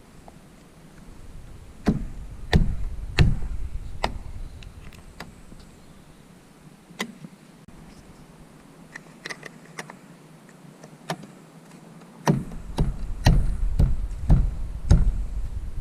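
Sharp knocks and clicks of a roof rack bar being fitted and clamped onto a car's roof. A few come in a row about two to four seconds in, a few more are scattered in the middle, and a dense run of them comes near the end.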